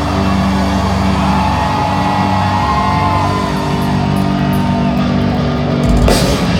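Heavy metal band playing live through an arena PA: distorted guitars and bass holding sustained chords with drums, with wavering higher guitar or vocal lines above. A loud crashing hit comes about six seconds in.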